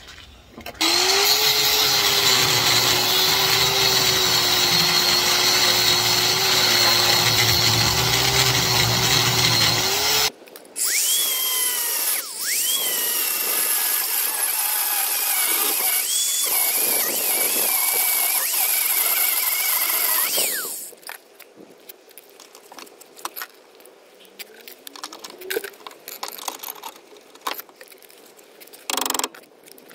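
Corded angle grinder cutting through a seized, rusted suspension bolt that would not undo. It runs in two long stretches, the second with a high whine that dips and recovers twice, then stops about two-thirds of the way through. Small clicks and knocks follow.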